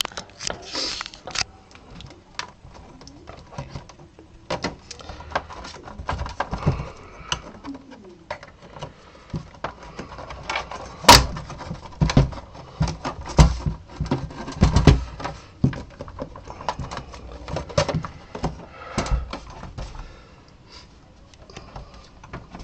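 Plastic back cover of an LCD monitor being pried off: irregular clicks and knocks as its retaining clips snap loose and the plastic shell is handled, with one sharp crack about eleven seconds in and several heavier thumps just after.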